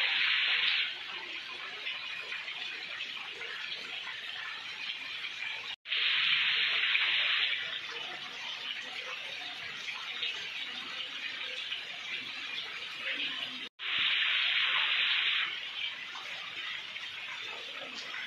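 Steady rainfall hiss. It drops out for an instant twice and each time comes back louder for a second or two.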